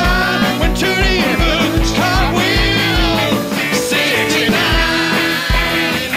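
Live rock-style band of keyboards, drums and guitar playing, with voices singing over a steady kick drum beat about twice a second.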